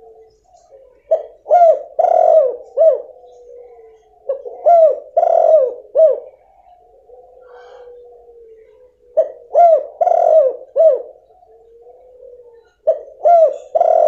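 Female spotted dove (tekukur) cooing, a call of the kind used to coax silent males into calling. A phrase of several short, falling coos comes four times, about every four seconds, with a softer steady note between the phrases.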